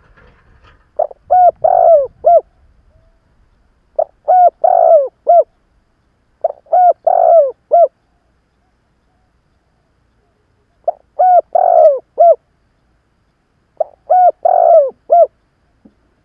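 Spotted dove cooing: an old decoy bird's call, used to lure wild doves. Five phrases of four notes each, the third note longest, repeated every few seconds.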